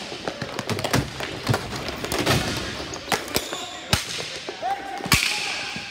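Ball hockey play: repeated sharp clacks and knocks of sticks and the plastic ball on the court and boards, the loudest a little after five seconds in, with players' voices in the background.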